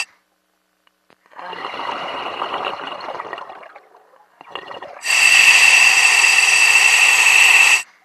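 A loud electronic hiss with a steady high whine that cuts off abruptly, comes back about five seconds in, and stops abruptly again near the end. Between the two, a softer watery rushing sound.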